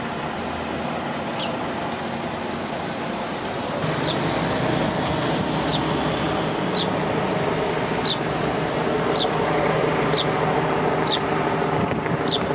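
A steady engine hum that grows louder about four seconds in, with a bird's short, high, falling chirp repeating about once a second over it.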